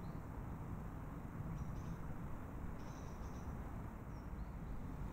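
Quiet outdoor ambience: a steady low rumble and hiss, with a few short, high-pitched chirps about two seconds in, around three seconds in and near the end.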